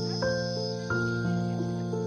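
Background music: a slow melody of held notes, changing about every half second.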